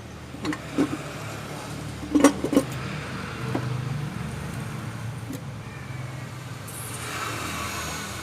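Workshop sounds during an engine removal: a handful of short, sharp metal knocks and clinks over a low steady hum like an engine running.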